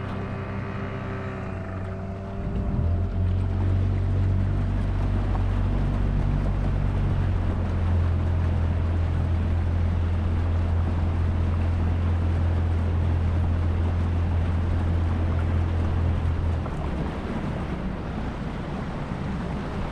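Outboard motor of an aluminium tinny running under way: a steady low drone over wind and water rush. The drone swells louder about three seconds in and drops back about three seconds before the end.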